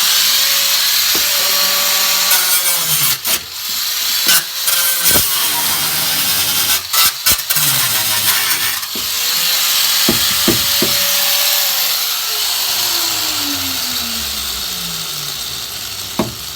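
Handheld power tool running hard on the car's metal bodywork, with a loud steady hiss and several sharp clanks. Its motor tone climbs and holds twice, then drops steadily over the last few seconds as the tool spins down.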